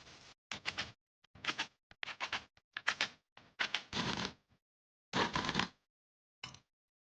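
A string of short clattering, knocking sounds, about eight in a row, each cutting off abruptly into silence.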